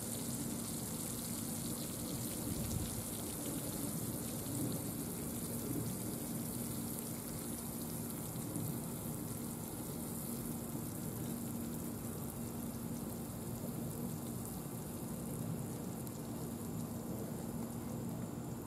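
Steady sizzling hiss of food frying on a hot flat-top griddle, with a low steady hum underneath.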